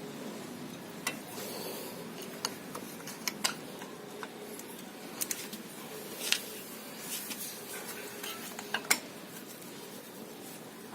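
Screwdriver prying between the worn pad and the caliper of a car's front disc brake, giving scattered metallic clicks, knocks and scrapes as the caliper piston is forced back. The sharpest knocks come about 6 and 9 seconds in.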